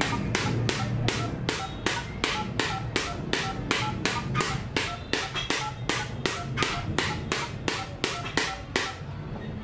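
Rapid, even tapping of a plastic toy hammer on a smartphone's touchscreen, about three and a half knocks a second, stopping shortly before the end. Each tap registers on the phone dialer's keypad, with a short key beep.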